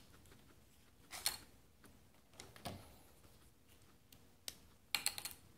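Guinea pig biting and chewing leafy lettuce: short crisp crunches, a cluster about a second in, another near the middle, and a quick run of several near the end.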